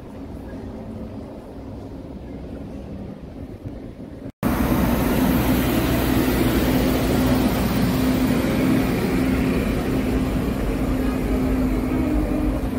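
Light street ambience, then after a cut about four seconds in, a tourist road train drives past close by over cobblestones, its engine running with a steady low hum.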